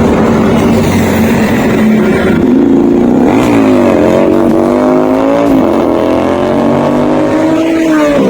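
Motorcycle engine running steadily and loudly, its pitch dipping and picking up again twice.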